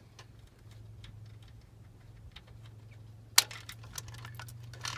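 Light metallic clicks and clinks as an R53 Mini Cooper S timing chain and sprocket are worked loose by hand, with one sharper clack about three and a half seconds in, over a low steady hum.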